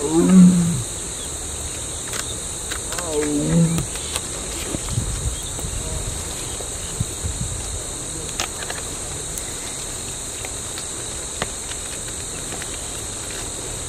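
Male Bengal tiger calling with deep, wavering roars, once at the start and again about three seconds in: the call of a tiger looking for a mate. A steady high drone of insects runs underneath.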